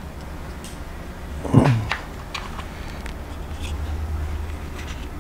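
Faint clicks and rustles of wires and a plastic receiver box being handled on an RC buggy chassis, over a steady low hum. About one and a half seconds in comes a short sound that falls in pitch.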